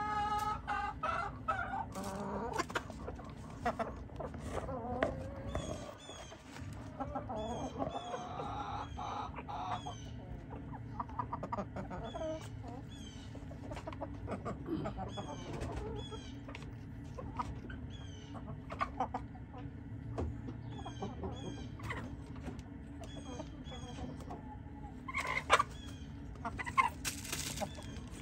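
Asil chickens clucking and calling as they peck at food, with bending calls in the first few seconds and short pecking clicks on the dirt throughout. A couple of louder noisy bursts come near the end.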